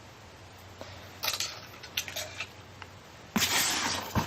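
Hands rummaging through foam packing peanuts in a box: a few short rustles, then a longer, louder rustle near the end that ends in a sharp click.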